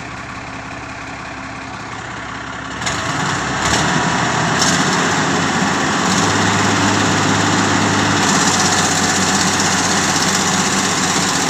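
Excavator's diesel engine running steadily, then revving up about three seconds in and holding at a higher, louder speed.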